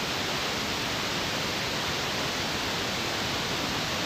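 Spice paste of onion, turmeric and ginger-garlic sizzling steadily in hot oil in a wok, being fried down until the oil separates from the masala.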